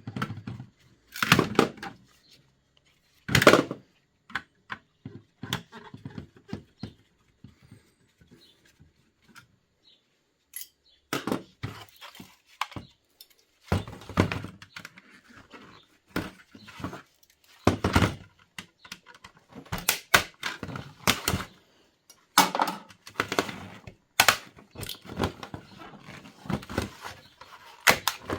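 Irregular knocks, clicks and clatter of a Dell Wyse thin client's casing, screws and parts being handled during disassembly, with a quiet spell of a few seconds in the middle before a busier run of clatter.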